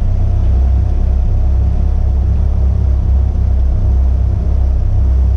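Caterham Seven race car's four-cylinder engine idling steadily while the car stands still, a low, even rumble heard from inside the open cockpit.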